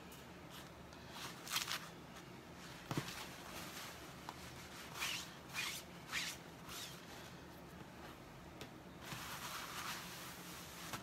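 Clorox disinfecting wipe rubbing and swiping over a plastic silkscreen transfer and a wooden tabletop: a string of short, faint swishes, a light knock about three seconds in, and a longer stretch of rubbing near the end.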